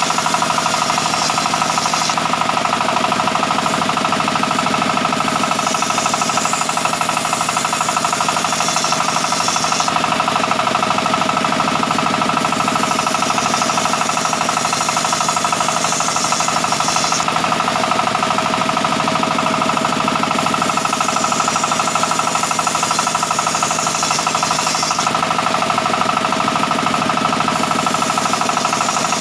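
Sawmill saw running steadily while cutting mahogany, with a high-pitched cutting noise that swells and fades every few seconds as the timber is fed through.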